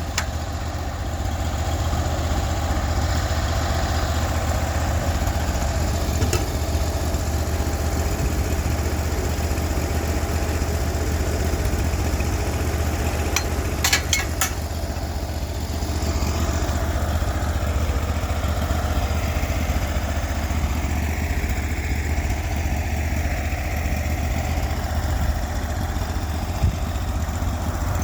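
Band sawmill's engine running steadily, with a few sharp clicks about fourteen seconds in.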